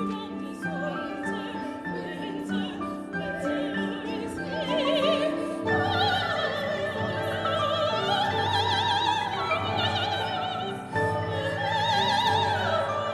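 Woman singing opera in a high voice with wide vibrato over instrumental accompaniment. The voice comes in about five seconds in and holds long, sustained high notes.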